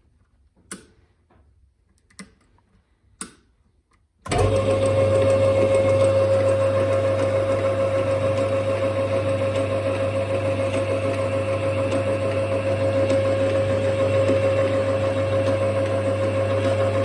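Three short clicks, then about four seconds in an Emco Compact 8E metalworking lathe starts up suddenly and runs steadily, its electric motor and drive giving a constant hum with a clear steady tone.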